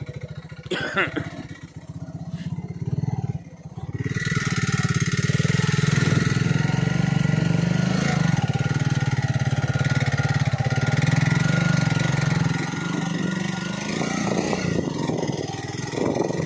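Motorcycle engine running as it rides over a rough dirt track, with a few knocks early on. About four seconds in it gets louder and a rushing noise comes in over it, as the bike picks up speed.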